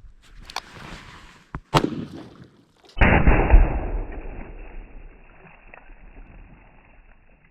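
A .460 Magnum revolver firing a heavy Buffalo Bore round, a sharp crack about two seconds in. From about three seconds in comes a deep, drawn-out, muffled boom, the shot slowed down, dying away over about four seconds.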